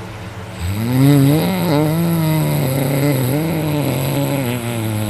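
A man snoring loudly in his sleep: one long, droning snore with a wavering pitch starts about half a second in and carries on.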